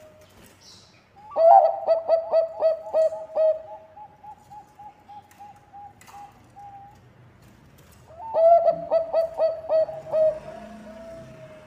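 Zebra dove (Bangkok perkutut) singing: two song phrases, each a quick run of loud rolling coos followed by softer, evenly spaced notes. The first starts about a second in and trails off around seven seconds; the second starts about eight seconds in.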